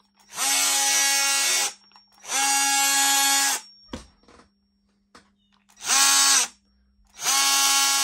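Ryobi cordless oscillating multi-tool, with a newly fitted replacement motor, switched on and run with no load in four short bursts of about a second each. Each burst is a steady buzzing whine that spins up and winds down.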